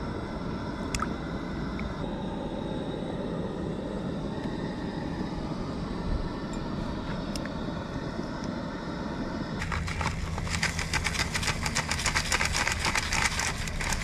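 A steady low rumble for about ten seconds, then a sudden dense crackling and bubbling from a pot of water boiling on a propane camp stove as basmati rice is poured in from its bag.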